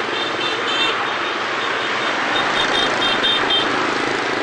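Dense motorbike and car traffic running through a city intersection, a steady din of many small engines. Bursts of short, high-pitched beeps come over it twice, in the first second and again past the middle.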